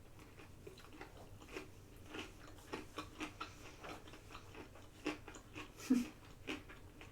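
A person chewing food close to the microphone: a run of small, irregular wet clicks and crunches from the mouth.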